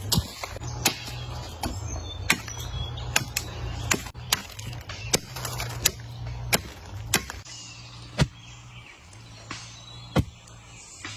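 A series of sharp knocks in a fairly even rhythm, a little slower than one a second, thinning out in the last few seconds, over a steady low hum.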